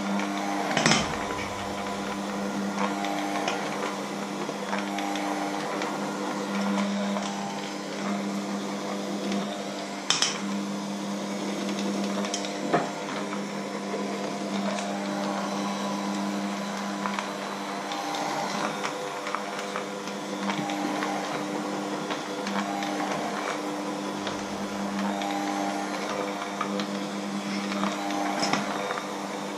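Bosch electric hand mixer running steadily with its wire beaters in a thick batter in a stainless steel bowl, a steady motor hum. A few sharp clacks, about a second in, around ten and thirteen seconds and near the end, as the beaters knock against the bowl.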